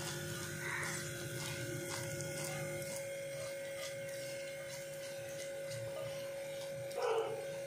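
A steady electrical hum, with faint scattered clicks and scrapes of a silicone spatula against a non-stick pan as thick toffee is scraped out into a paper-lined bowl, and a brief louder rustle just before the end.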